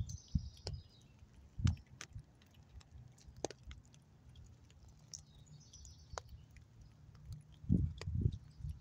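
Sparse, irregular light clicks from a fox squirrel eating a nut held in its paws close to the microphone, with a few dull low thumps near the end.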